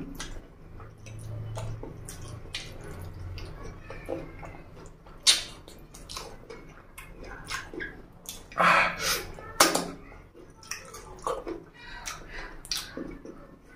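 Wet eating sounds: fingers squelching rice into curry gravy, and open-mouthed chewing and lip-smacking of rice and chicken feet. There is a string of short wet clicks, with a few louder smacks about five seconds in and again around nine to ten seconds.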